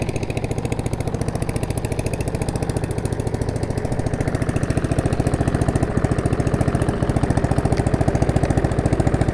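Four-stroke single-cylinder lawn mower engine running steadily just after a cold start, firing in a rapid even pulse while it warms up; it gets a little louder about four seconds in.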